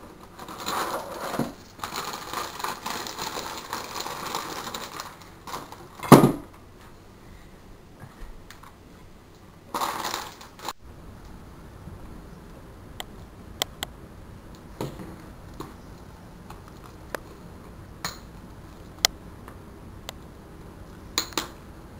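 Jars, bottles and utensils handled on a table while a sandwich is made. Several seconds of rustling and scraping come first, then one loud knock about six seconds in, more rustling near ten seconds, and after that scattered light clicks and taps.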